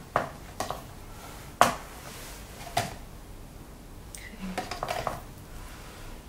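Kitchenware being handled: a few separate clinks and knocks of bowls and utensils. The sharpest comes about a second and a half in, with a run of small knocks around five seconds in.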